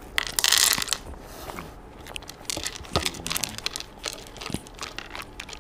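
Corgi eating meat from a plate, with irregular wet smacks, clicks and crunches of chewing. A short, loud rustle comes about half a second in.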